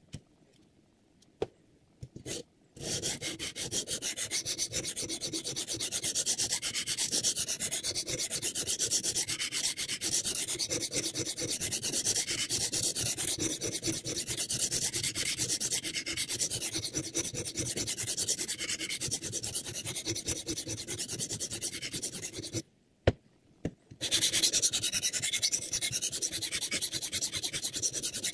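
Sharpening stone on the guide rod of a Hapstone R2 guided knife sharpener, rubbed rapidly back and forth along a knife edge: a steady abrasive scraping. A few clicks come before the stroking starts. About five seconds before the end the scraping stops briefly, with a couple of clicks as the blade clamp is turned over for the other side, then it resumes.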